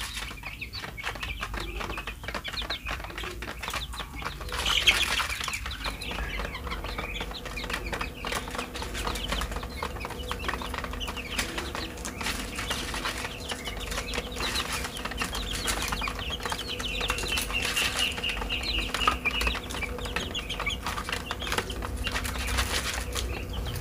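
A flock of three-week-old chicks peeping and cheeping as they feed, with many quick taps of beaks pecking grain in a plastic feed tray.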